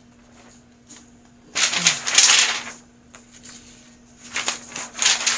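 Sheets of paper rustling and sliding as they are handled and laid flat on a table. There are two bursts, one about one and a half seconds in and one near the end, over a faint steady hum.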